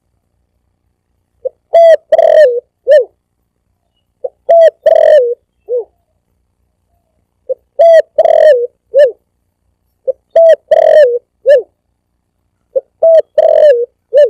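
Spotted dove (tekukur) cooing: five repeats of its phrase, a short note followed by longer wavering coos, about every three seconds with silence between.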